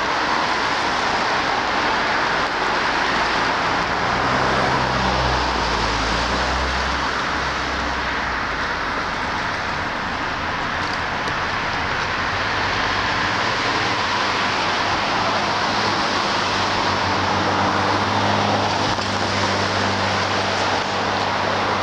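Steady road traffic noise, with the low hum of passing vehicle engines swelling a few seconds in and again through the second half.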